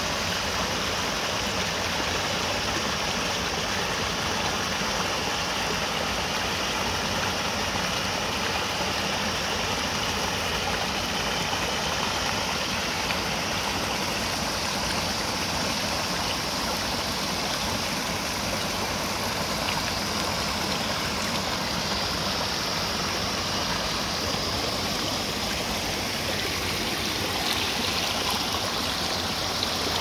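Small mountain stream running over and between boulders, a steady splashing rush of water.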